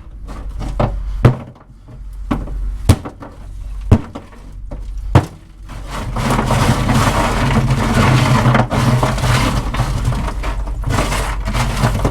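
A few sharp knocks, then from about six seconds in a loud, continuous fizzing and bubbling as alcohol poured over dry ice boils off into vapour.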